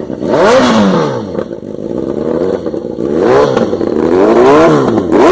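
BMW S1000 inline-four with a megaphone exhaust, revved hard several times, each blip climbing in pitch and dropping back.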